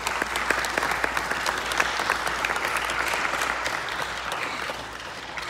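Audience applauding, many hands clapping at once. The applause thins out and fades near the end.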